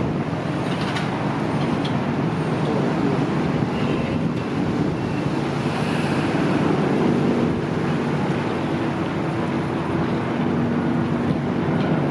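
Car ferry's engines running with a steady low hum under a wash of wind noise as the ship manoeuvres away from its berth; the hum grows stronger about seven seconds in.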